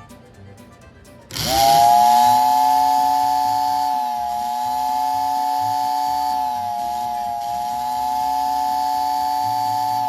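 American Flyer No. 577 whistling billboard's motor-driven whistle, which comes in about a second in with a quick rise in pitch and then holds a steady chord of several tones. A lower hum runs beneath it and dips briefly twice.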